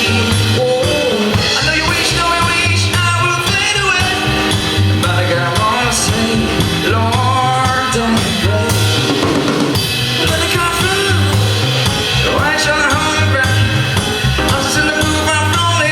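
Live pop band playing through a PA, drum kit keeping a steady beat under bass and a melody line.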